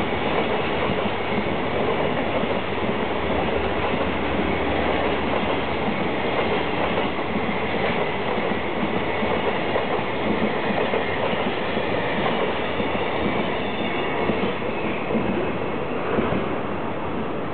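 A container freight train's wagons rolling past at speed, a steady clatter of steel wheels on the rails and over the rail joints.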